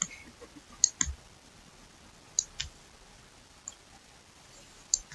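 A few light, scattered clicks and taps, about six in five seconds, from a stylus on a pen tablet as notes are handwritten.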